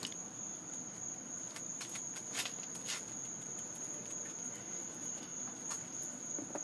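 A steady, high-pitched chorus of insects, crickets by the sound of it, with a few faint clicks and taps scattered through it.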